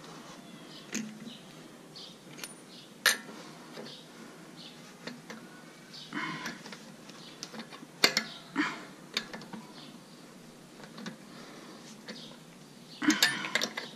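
Scattered metal clinks and clatters of lug nuts and hand tools being handled while a wheel is fitted, with sharp knocks about three and eight seconds in and a quick run of clinks near the end.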